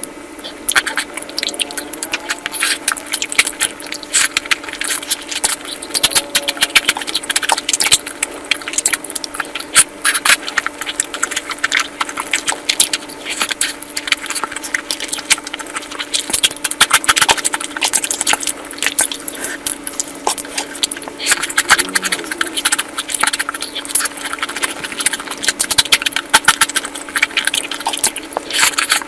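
Close-miked eating: wet chewing and mouth clicks coming quickly and continuously, over a steady low hum.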